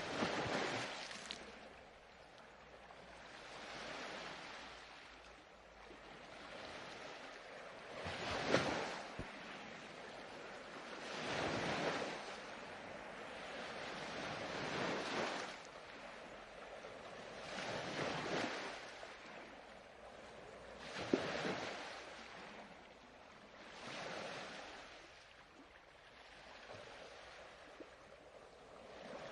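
Ocean surf: waves washing onto a shore, each swelling up and fading away, a new one every few seconds.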